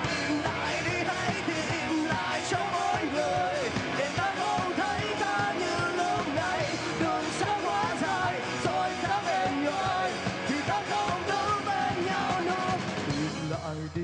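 Rock band playing live: drums with steady cymbal strokes under electric guitars and a high, shouted male lead vocal. About a second before the end the band thins out to a sparser, lower sound.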